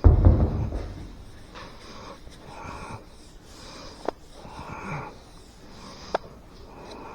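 Sandpaper on a sanding block rasping back and forth over a car body panel, about one stroke a second, after a heavy thump at the start. Two sharp clicks break in partway through.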